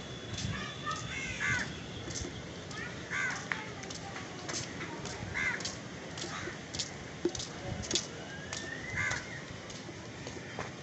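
Crows cawing repeatedly, short calls spaced a few seconds apart, with scattered light clicks and knocks.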